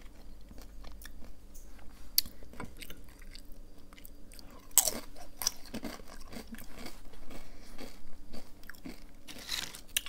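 A person biting and chewing a crunchy tortilla chip: irregular crisp crunches, loudest about five seconds in.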